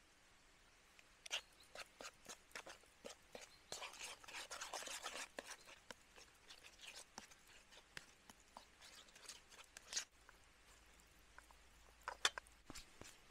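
A spoon scraping and clicking against a camping plate while stirring a thick red spice paste, with wet squishing. It is busiest a few seconds in, and there are a few sharper clicks near the end.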